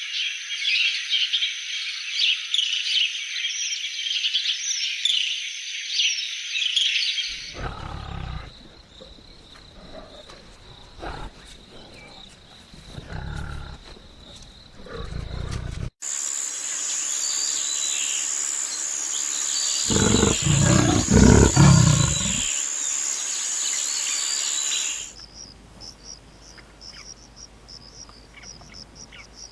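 Edited wild-animal soundscape in changing segments: dense insect and bird chirping, then low growls and rumbles, then a steady high insect drone under a loud, low animal roar about twenty seconds in, ending in faint insect chirps.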